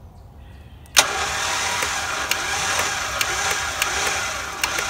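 Warn VR EVO 10S electric winch starting up sharply about a second in and running steadily, reeling in its synthetic rope, with occasional light clicks.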